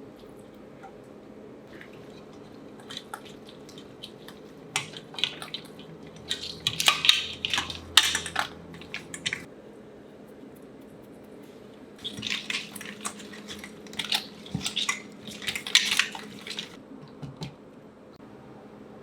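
Cooking utensils clinking and clattering in a mixing bowl as cold somen noodles are tossed with clams in their shells and tomato. The clatter comes in two spells of irregular clicks, the first a few seconds in and the second in the latter half.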